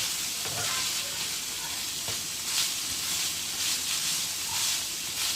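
Minced beef and onions sizzling steadily in a frying pan over reduced heat, with occasional light scrapes of stirring.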